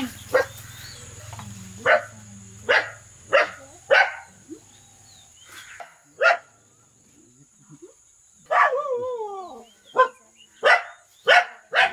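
A dog barking repeatedly in short single barks, with one longer call that falls in pitch about two thirds of the way in.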